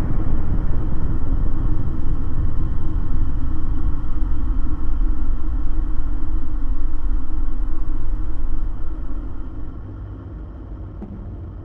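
A loud, deep rumble that dies away about nine seconds in.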